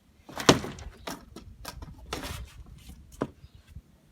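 A vintage circuit board being smashed: a sharp crack about half a second in, the loudest, followed by several smaller knocks and crunches.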